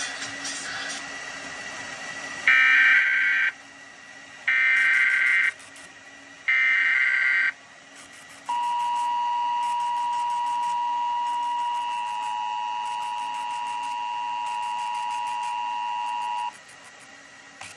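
Emergency Alert System SAME header: three one-second bursts of shrill, warbling data tones, then the EAS two-tone attention signal held steadily for about eight seconds, announcing a Required Monthly Test alert.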